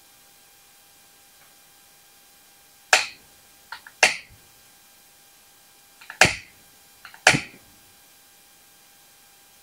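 A handheld lighter struck four times to light dried wormwood in a burner. The sharp clicks fall in two pairs about a second apart, several with a faint tick just before.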